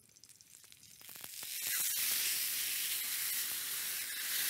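Drained boiled hen halves going into a frying pan of hot rendered lard: a loud, steady sizzle of frying fat that swells up about a second in and keeps going.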